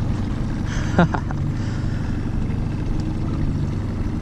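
Fishing boat's motor running steadily at low trolling speed, a constant low hum, with a brief voice about a second in.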